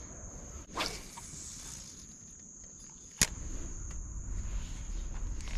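Insects in the riverside trees buzzing steadily at a high pitch, with a single sharp click about three seconds in.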